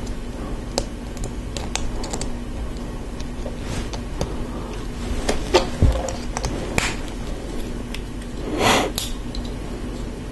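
LEGO plastic pieces clicking and clacking as they are handled and pressed together, a scatter of small sharp clicks with the loudest a little past halfway and a short rustle near the end, over a steady low hum.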